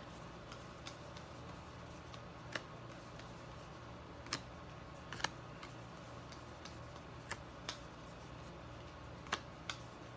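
Baseball trading cards being handled and flipped through: scattered light clicks and taps, about ten in all at irregular spacing, over a low steady hum.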